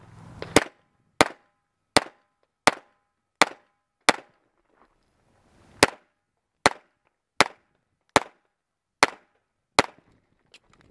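Semi-automatic pistol, a Smith & Wesson, fired twelve times in a steady string, shots about three-quarters of a second apart, with one longer pause of nearly two seconds after the sixth shot.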